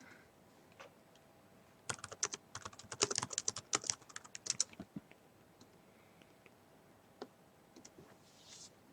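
A quick run of clicks lasting about three seconds, starting about two seconds in, then a few single clicks.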